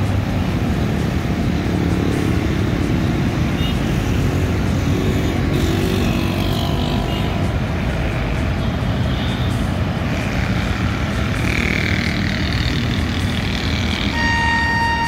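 AGE-30 diesel-electric locomotive hauling an express train, approaching with a steady low rumble of engine and wheels on the track. Its horn sounds in one steady blast about a second before the end.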